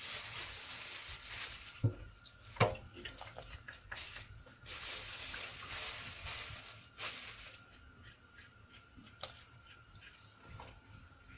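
Water running or pouring in two spells of a couple of seconds each, with a few sharp knocks of pot or utensils in between.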